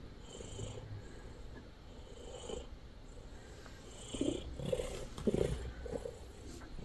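Domestic cat purring, with a soft snore-like breath about every two seconds. A few louder short rustles and knocks come between about four and five and a half seconds in.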